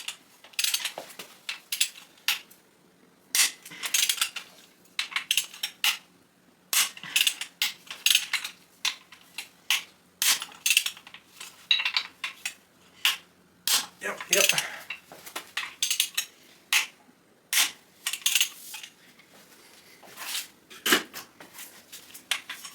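Irregular metallic clinks and clanks of a socket and hand tools against a bare LS1 engine block, as the main bearing cap bolts are worked loose.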